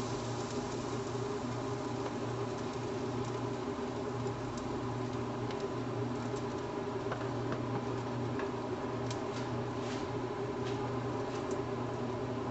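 A steady mechanical hum, with a few faint crackles from pancakes cooking in the pan in the second half.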